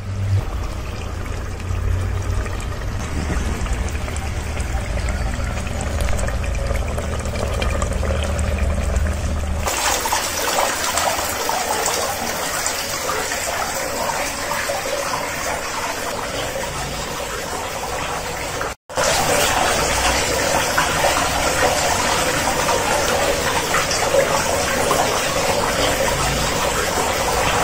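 Small tabletop rock-waterfall fountain splashing and trickling steadily. For the first ten seconds or so there is instead a low steady rumble, which then gives way abruptly to the water.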